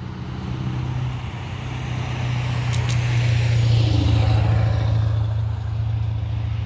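Traffic passing on a highway: one vehicle's engine and tyre noise swells to its loudest about four seconds in, then eases off, over a steady low hum.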